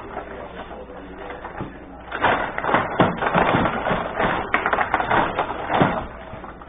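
Benej table hockey game in play: an irregular clatter of clicks and knocks as the rod-turned player figures and the puck strike each other and the boards. It gets busier from about two seconds in.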